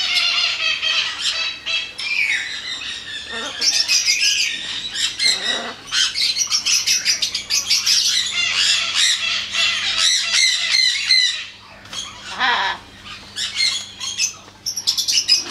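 Captive parrots, macaws and cockatoos, squawking and chattering, with many harsh calls overlapping and a quieter spell about twelve seconds in.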